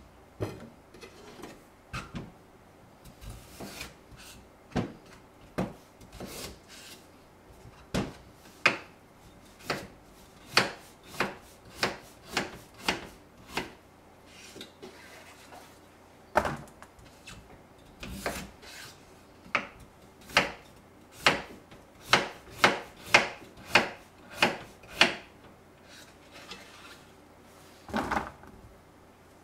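Kitchen knife cutting through a peeled daikon radish onto a wooden cutting board: a series of sharp knocks, uneven at first, then settling to about one a second, with a double knock near the end.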